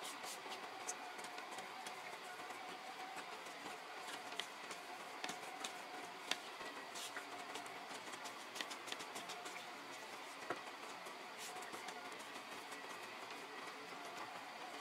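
Hands coating raw chicken pieces in flour in stainless steel trays: scattered light taps and clicks of fingers and chicken against the metal trays over a steady low hiss.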